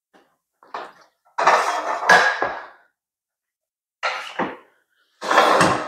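abba Superbike Stand, a metal motorcycle paddock stand, clanking and rattling as it is fitted to the swing-arm removal kit and worked under the bike: several short bursts of metal clatter with a few sharp knocks, the loudest about two seconds in.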